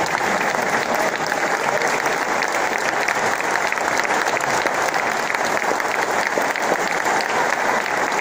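Large crowd inside a church clapping continuously, dense and unbroken.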